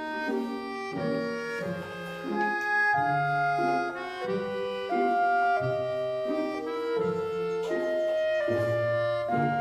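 Instrumental background music: a melody of held notes over a lower bass line, changing note about every half second.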